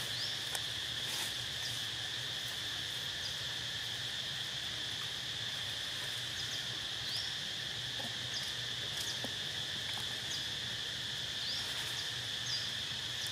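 Steady chorus of insects making a continuous high drone, with a few short, faint rising chirps and occasional faint ticks over it.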